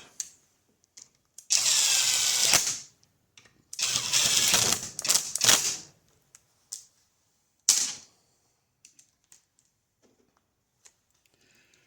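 Power driver spinning the tie bolts of a Ford PMGR starter back in, in two runs of about one and two seconds, its motor whine bending in pitch as the bolts tighten. A single sharp click follows.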